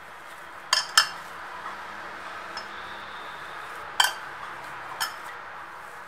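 Hands kneading semolina-and-flour dough in a ceramic bowl, with four sharp clinks against the bowl: two close together about a second in, then two more a second apart later.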